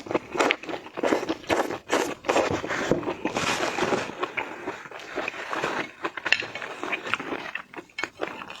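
Shellfish being cracked, peeled and chewed: a dense, irregular run of crackles and crunches.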